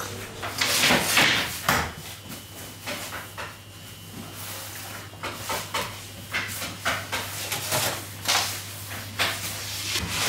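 Irregular scrapes, knocks and rustles of baker's work at a stone oven: a wooden peel sliding over the oven floor and thin flatbreads being handled and stacked on a wooden rack. A steady low hum runs underneath.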